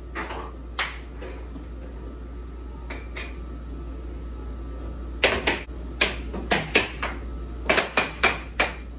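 Air hockey mallets hitting the puck and the puck knocking off the table's rails: a few sharp knocks in the first second or so, then a quick rally of about ten knocks from about five seconds in.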